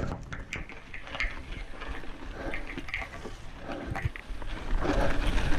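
Mountain bike climbing a rocky singletrack: tyres crunching over loose gravel and rock, with scattered clicks and knocks from the bike. The rumble grows louder near the end.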